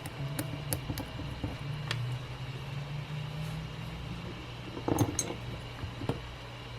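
A steady low hum with a few light clicks, and a short clatter of small knocks about five seconds in.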